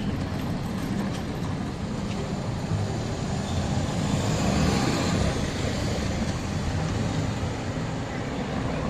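City street traffic: a steady rumble of engines and tyres, swelling as a vehicle passes about four to five seconds in.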